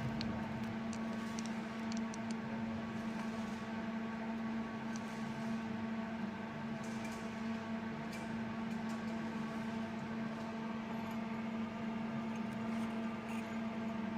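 Melting furnace running with a steady electrical hum, one low tone strongest and fainter higher tones over a light hiss, with a few faint ticks.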